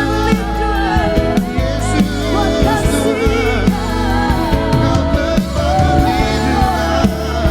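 Live worship band music with singing: sung melody over sustained keyboard chords, bass and a steady drum beat.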